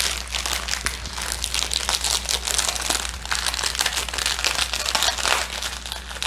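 Clear plastic bag crinkling steadily as hands grip, press and shift it, the bag packed with small sealed packets of diamond painting drills.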